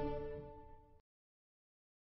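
The last chord of a TV station's ident jingle, held and dying away, cut off abruptly about a second in, then dead silence.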